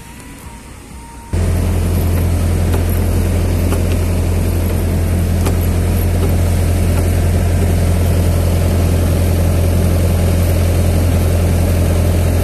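Yanmar combine harvester's diesel engine comes in abruptly about a second in, then runs steadily with a strong low hum.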